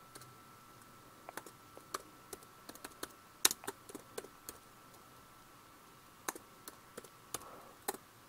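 Computer keyboard keys being typed in quick irregular runs, around eighteen faint keystrokes with a pause of about two seconds in the middle. A faint steady whine sits underneath.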